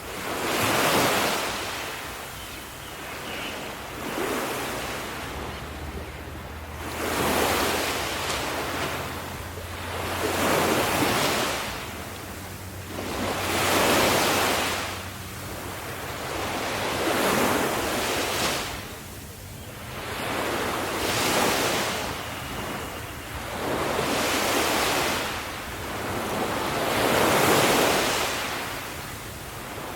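Ocean waves breaking on a shore, each wave swelling up and washing back, one about every three seconds.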